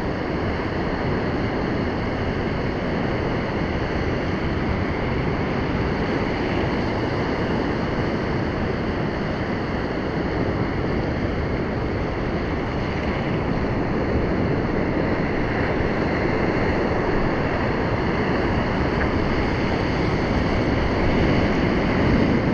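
Rough sea surf washing over a rocky reef platform: a steady rush of breaking waves and foam, with wind on the microphone.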